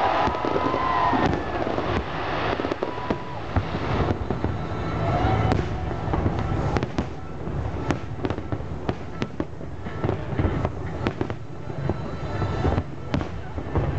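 Aerial fireworks display going off: many sharp bangs and crackles over a steady low rumble, the bangs coming thicker in the second half.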